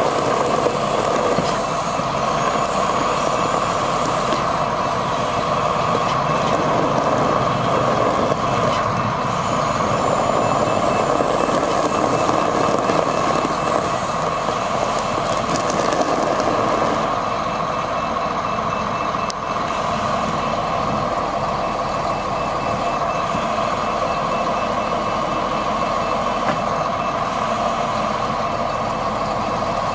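Diesel engine of a 1992 John Deere 770BH motor grader running steadily. In the later part an evenly pulsed backup alarm beeps over it.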